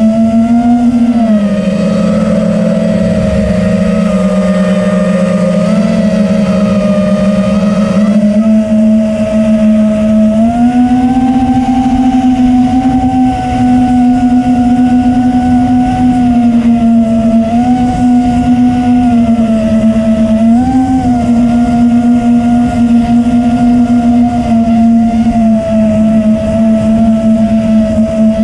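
FPV quadcopter's four brushless motors (Xing 2306 2450kv) and propellers whining with throttle, the pitch dropping about a second in, climbing again about ten seconds in, and blipping briefly twice later on. Wind rushes over the onboard camera's microphone underneath.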